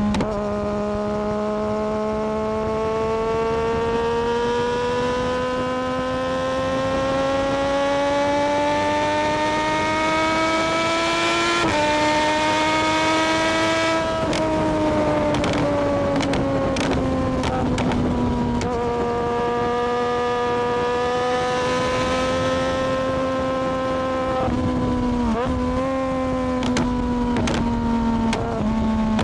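Triumph Daytona 675R's inline-three engine pulling under load while riding. Its pitch rises steadily for about eleven seconds, drops at a gear change, then falls away as the throttle eases. It holds a steady cruise and dips briefly a couple of times near the end.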